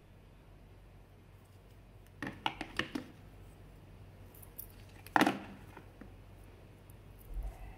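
Handling noises from a robot vacuum's plastic roller brush and plastic cleaning tool against a clear plastic tray: a quick run of light clicks and taps about two seconds in, then one louder knock about five seconds in.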